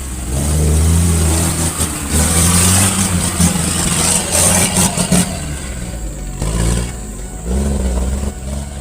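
Off-road 4x4 vehicle's engine revving up and down under load, with a loud rushing noise for a few seconds in the middle.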